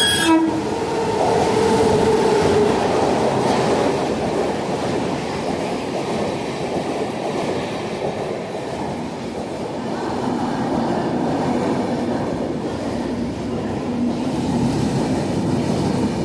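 Mumbai–Howrah Mail express train rolling slowly through the station, a steady rumble of coaches with wheel clatter over the rail joints. A horn sounds briefly near the start.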